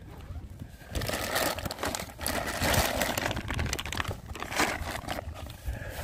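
Plastic bags crinkling and rustling as they are handled and rummaged through, an irregular crackle that starts about a second in.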